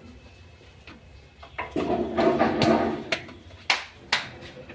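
Plastic intake filter cap of a train's auxiliary air compressor being fitted back on by hand: a scraping, rubbing stretch of about a second and a half, then two sharp clicks.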